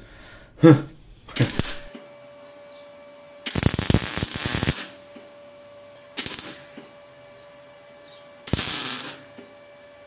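Electric arc welding: three short tack welds crackling and spitting, the first about a second long and the others shorter, with a steady hum between them.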